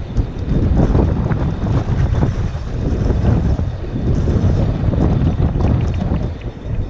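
Strong wind buffeting the microphone: a loud, gusty low rumble that rises and falls, easing briefly near the end.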